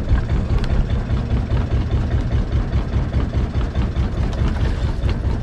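A motor running steadily with a low rumble while the pot-hauling winch brings a lobster pot up to the boat.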